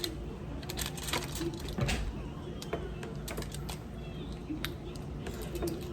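Close-up eating sounds of a seafood boil mukbang: irregular wet lip-smacking and chewing clicks.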